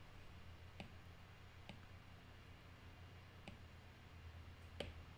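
Faint taps of a stylus on an iPad's glass screen: four light clicks spread a second or two apart, the last the loudest, over a low steady hum.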